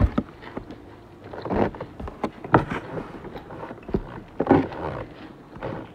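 A person eating: a fork clicks and scrapes against a ceramic plate several times, between short chewing and mouth sounds.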